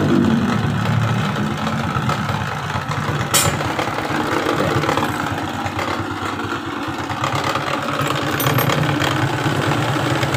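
Suzuki Shogun 125's single-cylinder four-stroke engine idling, its revs falling back at the start, with one sharp click about three seconds in. It is running with the battery disconnected, the condition in which it runs rough; the mechanic puts this down to too little current reaching the CDI from a weak charging system.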